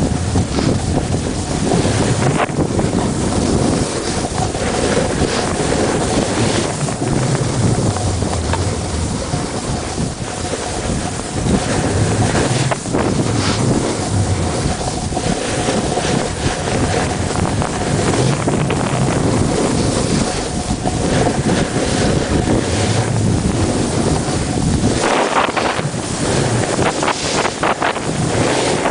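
Wind buffeting the microphone on a run down a ski slope, mixed with the rasp of sliding over snow.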